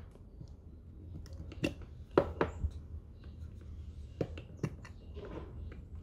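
Cylindrical lithium-ion cells being pushed into a plastic cell holder: a handful of sharp, irregularly spaced clicks and knocks of cell against plastic.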